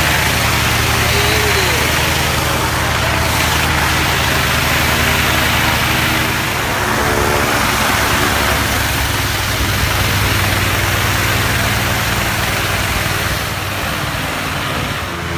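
Steady hiss of water spraying down from a film-set rain tower as artificial rain, over a gas engine running steadily.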